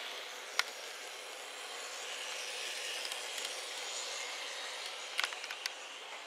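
N gauge model trains running on the layout track: a steady whir and rolling noise that swells a little mid-way as trains pass close. A few sharp clicks sound about half a second in and again near the end.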